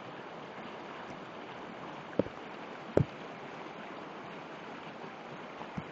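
River water rushing over shallow rapids, a steady wash of noise. Two loud thumps about a second apart fall just past the middle, with a softer one near the end.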